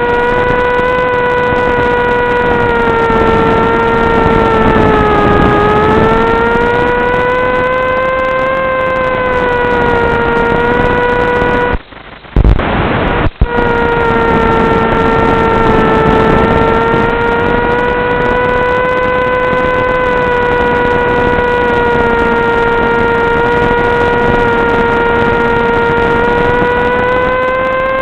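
Electric motor and propeller of an FPV wing running at a steady high pitch, dipping slightly and rising again with throttle. About twelve seconds in the sound cuts out for a second or so with a couple of sharp loud crackles, then the drone resumes.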